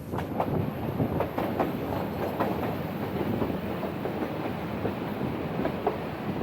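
Nilgiri Mountain Railway train running, heard from aboard: the wheels clatter over the rail joints and the coach rattles, with many irregular knocks over a steady rumble. It comes in abruptly at the start.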